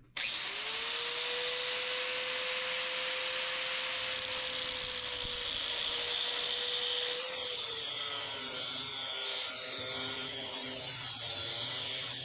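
Electric angle grinder switched on, its motor whine rising as it spins up and then holding steady, then the cutoff wheel cutting into the steel shaft of a Gravely Model L input gear clamped in a vise. About seven seconds in, the whine drops slightly and turns rougher as the wheel bites under load.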